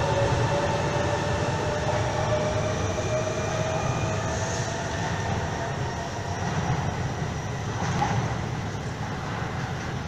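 Electric commuter train pulling out of an underground station and accelerating away into the tunnel: a motor whine rising slowly in pitch over a low rumble, fading gradually as it goes.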